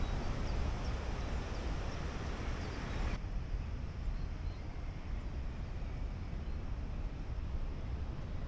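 Steady outdoor background noise, mostly a low wind rumble on the microphone with a hiss over it. The hiss drops away abruptly about three seconds in, leaving mainly the low rumble.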